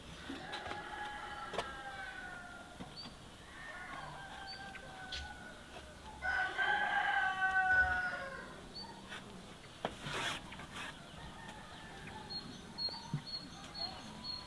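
Rooster crowing three times: two faint crows, then a louder, longer crow about six seconds in, each sagging in pitch toward its end. A single sharp knock comes about ten seconds in.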